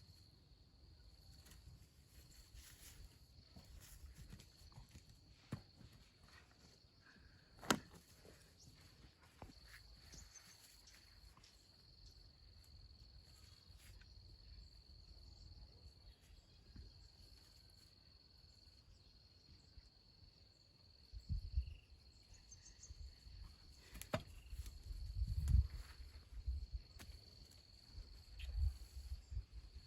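A steady, high-pitched insect drone at a single pitch. A couple of sharp snaps or clicks and, in the second half, low thumps and rustling of movement.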